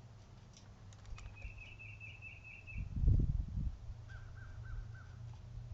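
Bird calls: a quick run of short, repeated high notes about a second in, and a slower run of four lower notes near the end. A loud low thump comes just past the middle, over a steady low hum.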